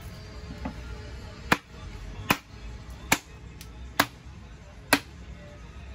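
Five sharp blows of a hand tool against an old slatted wooden crate, roughly one every second, as the crate is chopped apart for firewood.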